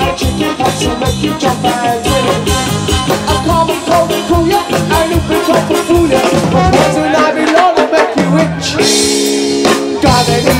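Live ska band playing an instrumental break, with drum kit, bass and a saxophone line. Near the end the band holds one chord for about a second under a cymbal crash, then the groove resumes.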